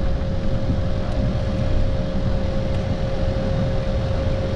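Steady cockpit noise of a business jet on the ground with its jet engines running: a constant low rumble under a steady whine held at one pitch.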